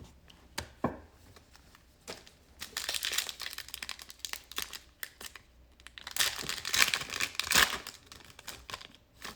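A trading-card pack wrapper being torn open and crinkled by hand, in two spells of crackling rustle, with a few sharp clicks in the first second.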